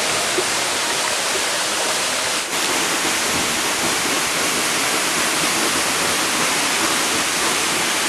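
Tumimperas waterfall crashing steadily into its plunge pool, an even rush of falling water with a brief dip about two and a half seconds in.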